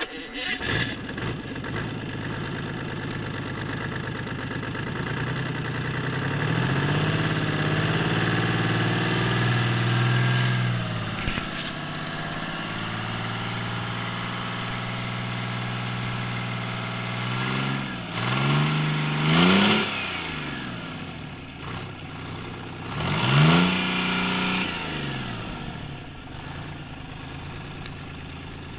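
Detroit Diesel 6V92T turbocharged two-stroke V6 diesel running. It idles, holds a faster speed for a few seconds and drops back, then gets two quick revs about two-thirds of the way through, each rising and falling back to idle.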